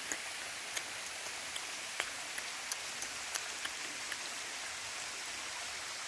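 Waterfall water falling and splashing: a steady hiss with scattered small ticks of drops.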